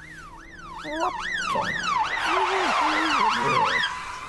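Police van siren wailing rapidly up and down, about two to three sweeps a second. It grows much louder about a second in, with a second wail overlapping out of step, and cuts off near the end.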